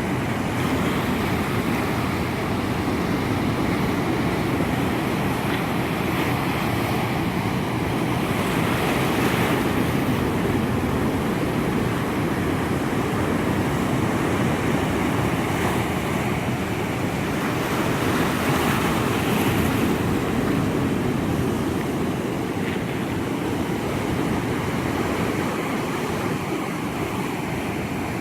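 Pacific Ocean surf washing ashore, a steady rush of breaking waves that swells louder twice, about a third of the way in and again about two-thirds through.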